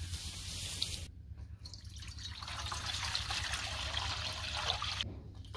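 Tap water running and splashing over okra being washed, with the flow breaking off about a second in, returning, and breaking off again near the end.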